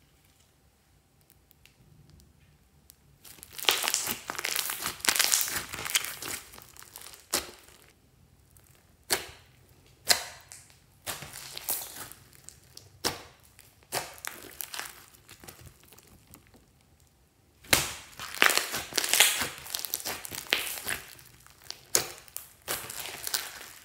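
Orange slime full of small foam beads being squeezed and kneaded by hand, crackling and clicking. The crackling starts about three seconds in, comes in two dense spells, one early and one near the end, with single clicks in between.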